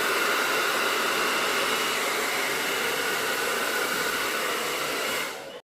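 Handheld hair dryer running steadily at one speed, then cutting off abruptly near the end.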